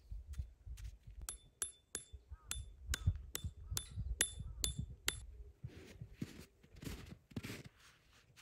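Peg hammer striking a metal tent stake, about a dozen quick ringing metallic taps at roughly three a second as the stake is driven into the snowy ground. A few soft crunching scuffs in the snow follow.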